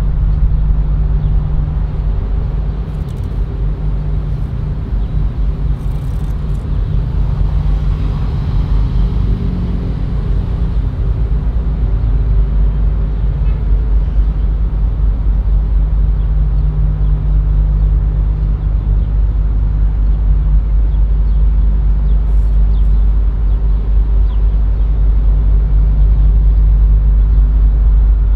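Steady low engine rumble with a droning hum that fades for a few seconds in the middle and then returns.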